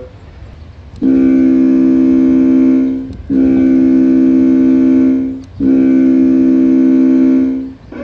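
Ship's horn sound effect played through the RC boat's ESS Dual sound module: three long blasts of about two seconds each, all at one steady pitch, with short gaps between them.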